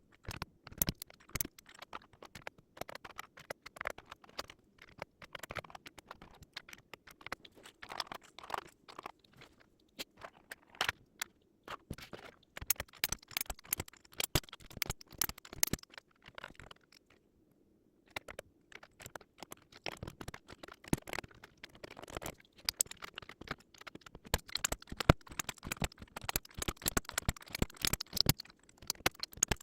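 Irregular small clicks, taps and scrapes of keyboard parts being handled and fitted together during a mechanical keyboard build, with a brief pause a little past halfway.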